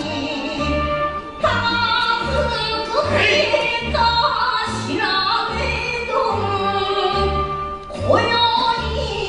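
Backing music for a sword dance: a solo voice singing long, wavering notes over a steady low beat.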